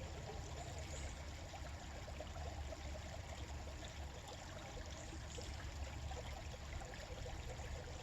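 Steady flowing water of a stream or creek, a continuous even rush with a low rumble beneath it.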